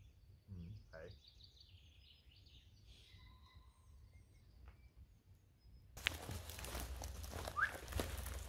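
Faint outdoor ambience with a few birds chirping, then about six seconds in a sudden close rustling and crinkling noise starts and carries on.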